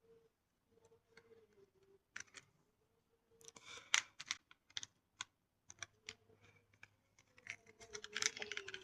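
Small remote-control toy cars clicking and clattering in irregular bursts of plastic knocks, over the faint wavering whine of a small electric motor.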